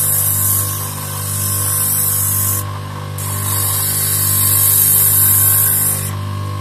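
Power drill spinning a cork float body with a steady hum, while sandpaper held against the turning cork makes a loud hiss. The sanding lifts off briefly about two and a half seconds in and again near the end.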